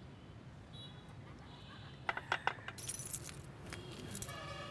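A few sharp metallic clicks, then a bunch of keys jangling and jingling in the hand.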